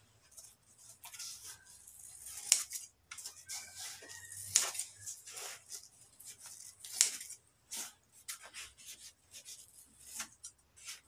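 Scissors snipping through thin 5 mm upholstery foam in a run of short, irregular cuts, with the sharpest snips about two and a half, four and a half and seven seconds in.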